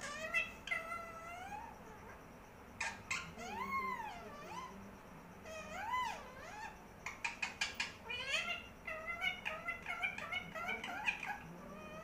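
Indian ringneck parakeet calling: drawn-out calls that swoop up and down in pitch, then a fast run of short, sharp chirps from about seven seconds in.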